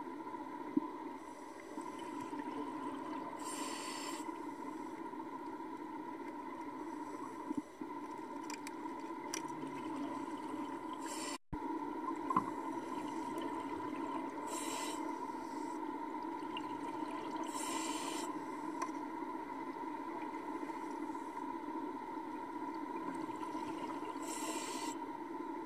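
Underwater sound: a steady hum, broken every several seconds by a short hiss of a diver breathing through a regulator, with a few faint knocks.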